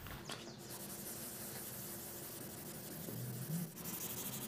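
Sunmight 800-grit flexible sandpaper on a hand block lightly rubbing over a metallic basecoat, a faint steady scratchy rubbing, sanding out a halo caused by rough sealer underneath. A brief low hum sounds about three and a half seconds in.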